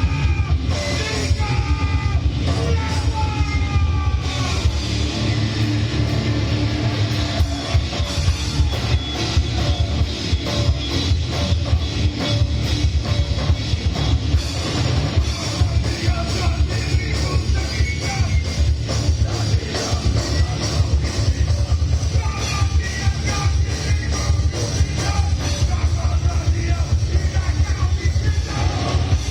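Live heavy rock band playing loud and fast, with distorted guitars, pounding drums and shouted vocals.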